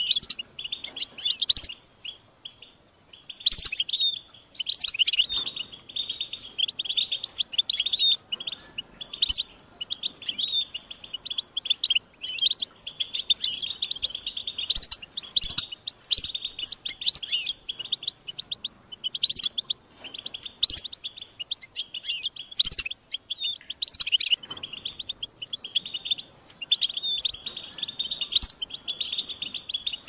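European goldfinch singing: fast, high, twittering phrases of rapid chirps, broken by short pauses.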